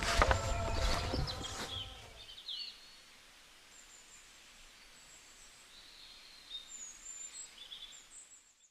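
Small birds chirping faintly in short high calls and sweeps over a quiet background, after a louder sound fades out about two seconds in.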